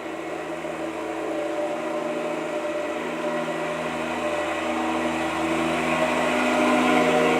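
A steady mechanical drone from a motor or engine, holding several steady tones, that slowly grows louder.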